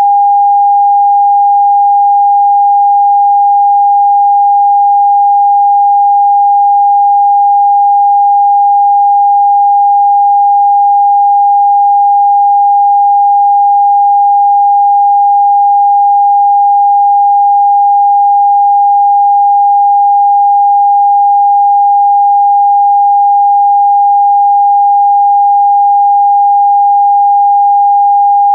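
Broadcast test tone sent with a TV test card: one steady pure tone at a single pitch, unbroken and unchanging in pitch and loudness.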